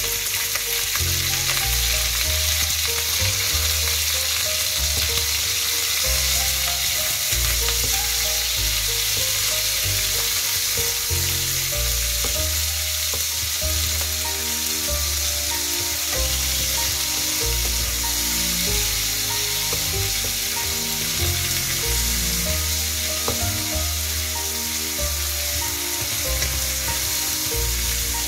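Diced meat sizzling steadily in hot cooking oil in a wok with browned garlic, stirred now and then with a wooden spatula.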